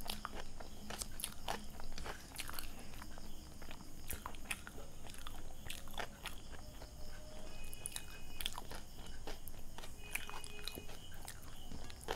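Close-miked eating sounds: someone chewing a mouthful of pav bhaji, with a run of short, sharp, wet mouth clicks and smacks.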